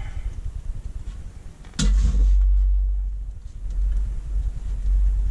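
Low, uneven rumbling handling noise from a metal rack-mount monitor being moved about, with a single sharp knock about two seconds in as it is set down on the padded work mat.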